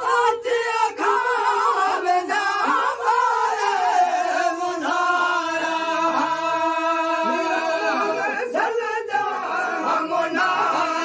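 Men's voices singing a Sindhi molood, a devotional song, unaccompanied, with long drawn-out held notes.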